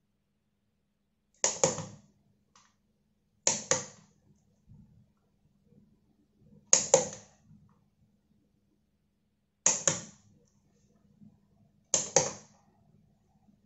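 Power strip's rocker switch clicked five times, two to three seconds apart, each a sharp double click: the Realme smart LED bulb being switched on and off repeatedly to put it into setup mode.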